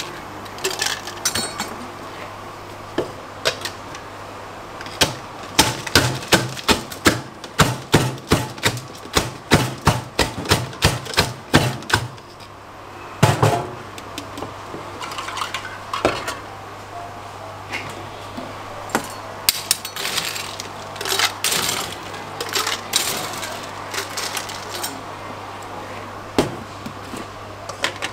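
Rapid rhythmic knocking for several seconds, about two to three strokes a second, as mango chunks are mashed in a plastic shaker cup. After that come one loud knock and scattered clinks and knocks of ice and plastic containers on a steel counter, over a low steady hum.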